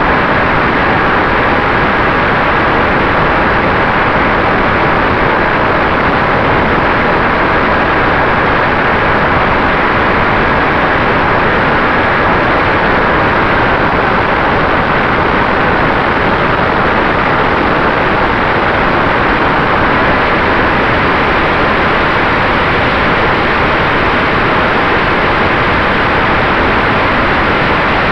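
Steady, loud rush of wind and propeller noise picked up in flight by an FPV model aircraft's onboard camera, with a faint steady motor tone underneath.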